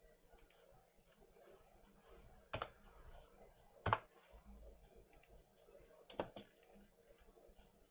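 Four sharp computer mouse clicks over faint room tone: one about two and a half seconds in, the loudest about a second later, and a quick pair a little after six seconds.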